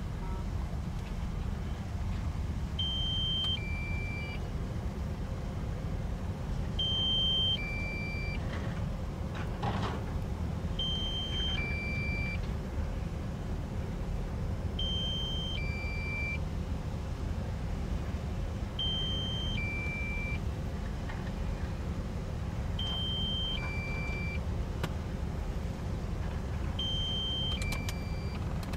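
Kobelco SK260LC excavator's diesel engine running steadily under load while it loads and digs. Over it, a two-note electronic alert (a higher beep followed by a lower one) repeats about every four seconds, seven times in all.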